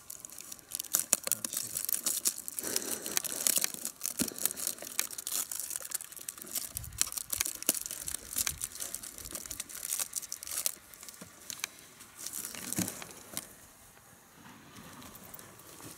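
Clear adhesive tape being pulled, torn and pressed around the motor mount of a cardboard model plane, with cardboard rubbing and crinkling: a run of crackly rips and rustles that grows sparser and quieter over the last few seconds.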